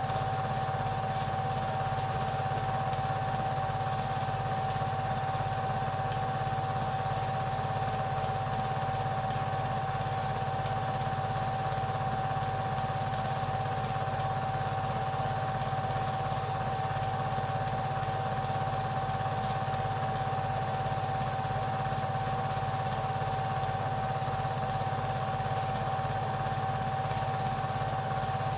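Super 8 film projector running steadily: an even mechanical hum with a fast low flutter and a constant high whine.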